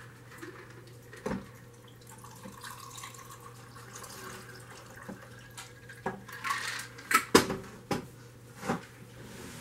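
A shaken cocktail poured from a metal cocktail shaker into a glass, a faint steady trickle, followed about six seconds in by a handful of sharp clinks and knocks as the shaker and glass are handled, the loudest about seven seconds in.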